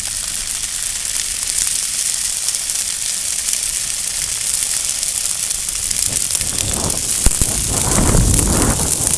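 Dry field grass burning along a flame front: a dense, steady crackle and hiss. About two-thirds through a low rumble joins in, and one sharp pop stands out shortly after.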